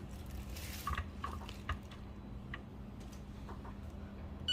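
Faint small taps and drips around a pour-over coffee brewer, with a short hiss about half a second in, over a steady low hum. An Acaia Lunar digital scale beeps right at the end.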